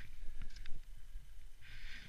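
Snowboard edge scraping across wind-packed snow through turns: a hissing scrape near the start and another near the end, with a few light clicks in between, over a low wind rumble on the microphone.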